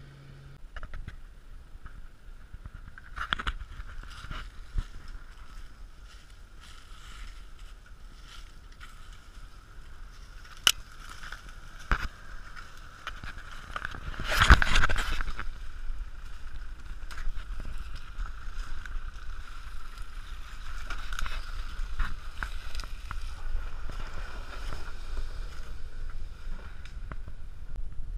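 Off-road 4x4 vehicles' engines working steadily on a sandy forest track, with scattered knocks as they go over the ground and one loud thump about halfway through.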